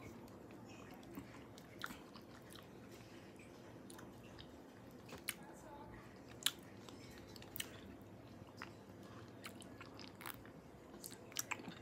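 Quiet, close-up chewing and mouth sounds of someone eating santol fruit, with scattered small wet clicks and smacks, the sharpest about six and a half seconds in and a quick cluster near the end.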